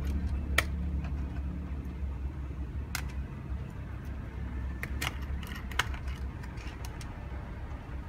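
Small sharp clicks and taps of a screwdriver and screws against a laptop's plastic bottom cover, scattered irregularly, over a steady low background hum.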